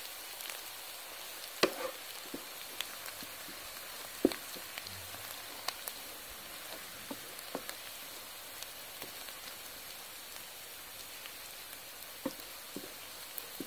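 Chopped onions sizzling steadily in hot oil in a karahi. A wooden spoon stirs them, with a sharp scrape or tap against the pan every few seconds. The onions are almost done, turning light golden-brown.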